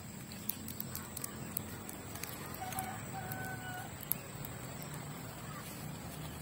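Small wood fire crackling under a pan, with sharp pops scattered through it. About three seconds in, a distant animal call sounds: two short, steady notes, the second longer.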